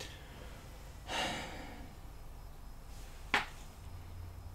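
A person's short breath out about a second in, then a single sharp click near the end, after which a faint low hum sets in.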